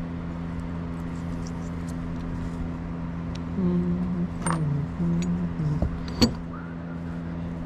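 Small metal parts and hand tools clinking as they are handled, with a sharp clink about six seconds in, over a steady low hum.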